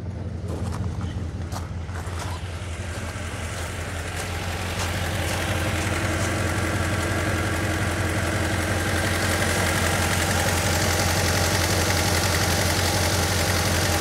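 Ford Mondeo Mk3's 1.8 petrol four-cylinder engine idling roughly, a steady low hum that grows louder over the first few seconds and then holds. It doesn't sound good: the engine is misfiring, with cylinders 1 and 4 logged, and the check engine light is on.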